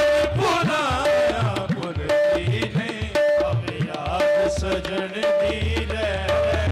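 Live qawwali music: harmoniums playing, with a repeated held note, over fast hand-drum strokes, in a passage with no sung words.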